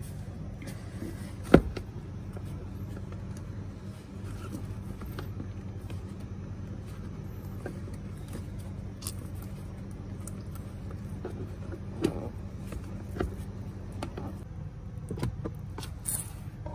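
Steady low machine hum with scattered knocks and taps as the bare metal floor of a car is handled. A sharp knock about one and a half seconds in is the loudest.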